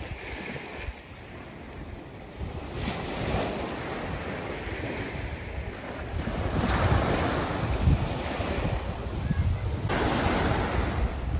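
Small waves breaking and washing up a sandy beach, the surf swelling about three times, each louder than the last, with wind rumbling on the microphone.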